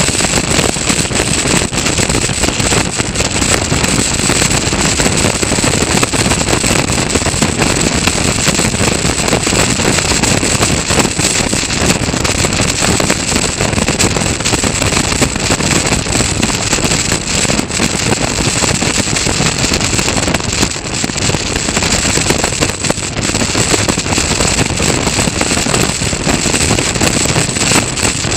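Onboard sound of a Caterham Roadsport race car at racing speed: its engine running hard, mixed with steady wind buffeting on the open car's microphone.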